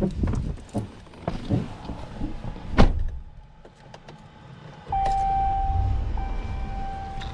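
Pickup truck door opening and the driver climbing in with knocks and rustles, then the door slammed shut a little under three seconds in. About two seconds later the engine starts and runs steadily while a dashboard warning chime rings repeatedly.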